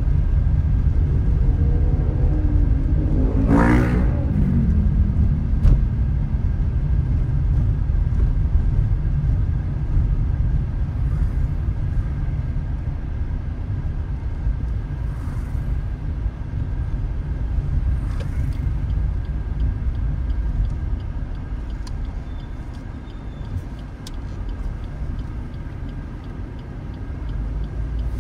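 Steady low road and wind rumble of a car driving. About three to four seconds in, a louder pitched sound sweeps past and falls in pitch, like another vehicle going by.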